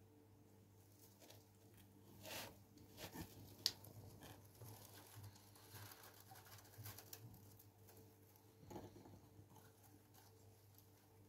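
A hamster rustling and scratching faintly among hay and against an edible seed tunnel, with scattered small clicks and one sharp click about three and a half seconds in. A low steady hum lies underneath.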